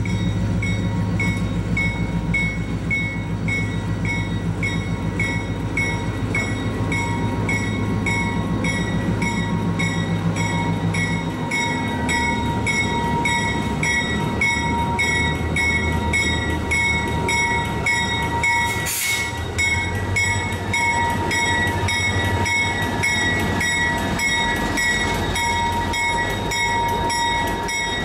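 Diesel freight locomotive approaching and passing close by, its engine running steadily. A bell rings throughout at about two strokes a second.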